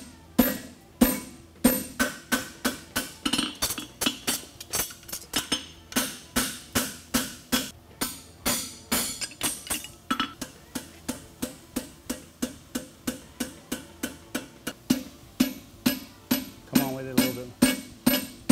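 A hammer strikes a handled fuller held in a red-hot steel horseshoe on an anvil, forging the nail groove. The blows are steady and even, about three a second, each one sharp and ringing.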